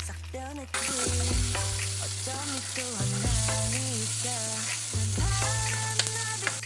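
Frying sizzle sound effect: a steady hiss that starts just under a second in, over background music with a melody and a stepping bass line.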